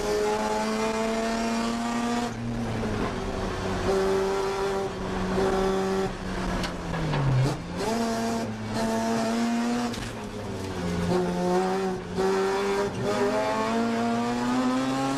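1982 Mazda RX-7 race car's rotary engine under hard acceleration, heard from inside the cabin: the engine note climbs in pitch through each pull, then drops or breaks off briefly several times as the driver shifts or lifts for corners.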